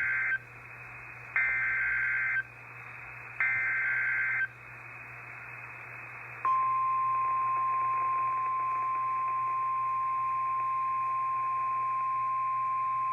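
NOAA Weather Radio Emergency Alert System tones for a tornado warning: the end of the SAME digital header, heard as three buzzy data bursts about a second long and a second apart, the first already ending as the clip opens. About halfway through, the steady single-pitch 1050 Hz warning alarm tone starts, which announces the spoken warning to follow.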